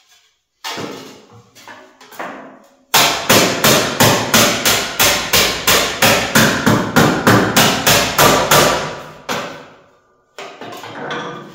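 A hammer striking sheet metal: a few scattered knocks, then, about three seconds in, a fast, even run of blows, about four a second, each ringing briefly, lasting some six seconds.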